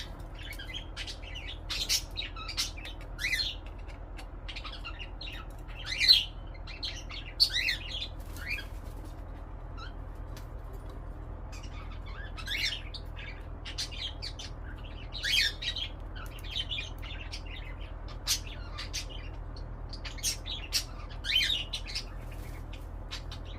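Pet cockatiel chirping and squawking in short, irregular calls, with a quiet pause of a few seconds near the middle.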